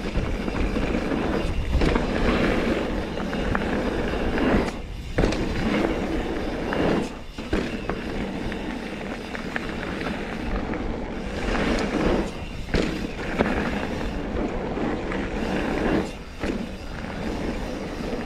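Mountain bike rolling over dirt trail: tyres running on the ground with the bike clattering and knocking over bumps, and a few brief lulls.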